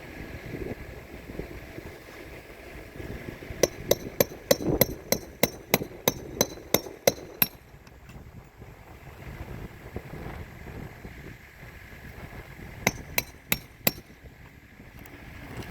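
Hammer driving roofing nails: a run of about a dozen quick, evenly spaced strikes, then four more near the end.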